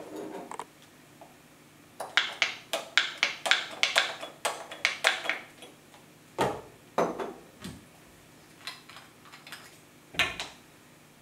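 A quick run of about a dozen clicks and light glass knocks, roughly three a second, as liquid soap is pumped from a dispenser bottle into a glass conical flask. Then come a few separate, louder knocks of glassware being set down on a table.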